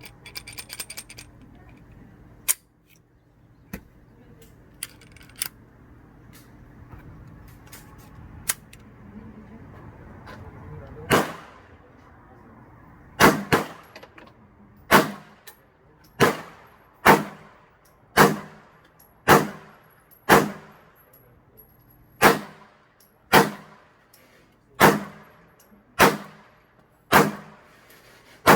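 A .40 S&W handgun firing a string of about fifteen shots, roughly one a second, each a sharp crack with a ringing tail. Before the string come a brief metallic rattle and a few single sharp cracks.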